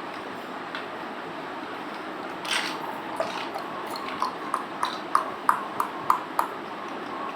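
Plastic building blocks being handled and clicked together: a brief rustle, then a quick run of about eight sharp clicks, each with a short ring.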